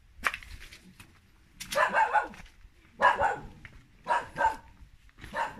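A dog barking repeatedly, a bark or two about every second.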